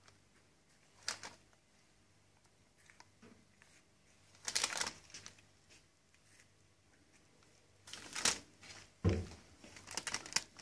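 Faint, scattered rustles of a piping bag being squeezed and handled while crosses are piped onto a tray of hot cross buns, with a soft low thump about nine seconds in.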